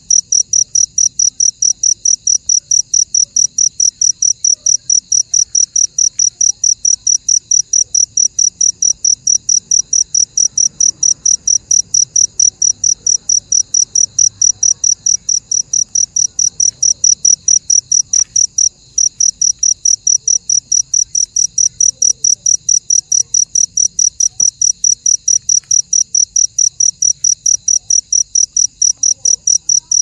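Night insect chirping steadily: a loud, high-pitched chirp repeated about three to four times a second, with a short break about nineteen seconds in.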